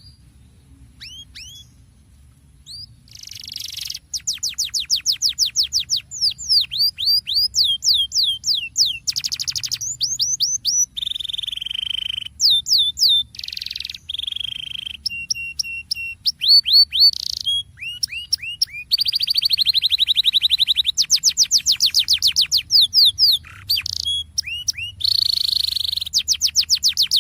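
Canary singing: after a few scattered chirps, from about four seconds in it runs into long rolling trills of fast, repeated high downward-sweeping notes mixed with steady buzzy trills. This is a lure song played to get other canaries singing.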